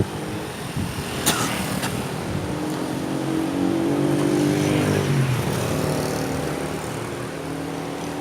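A motor vehicle passing on the road close by: its engine note grows louder and rises, then drops in pitch as it goes past about five seconds in, and fades away. Two sharp clicks come about a second in.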